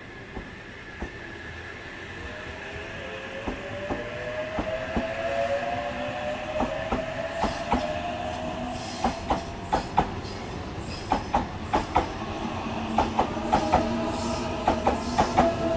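Eight-car Sydney Trains H-set (OSCAR) electric train rolling through the platform, its wheels clacking over the rail joints in quick irregular clicks. An electric whine rises slowly in pitch over the first ten seconds.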